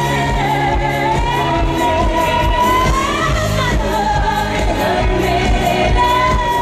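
Women singing a pop song live into microphones over backing music with a steady beat, amplified through a stage PA. The lead voice holds long, wavering notes.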